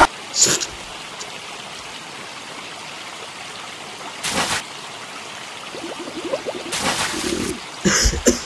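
Fight sound effects for cartoon dinosaurs over a steady background hiss. Short sudden noisy bursts come about half a second in, just past four seconds and near the end. Between about six and seven and a half seconds there is a stretch of rough pitched growling sounds.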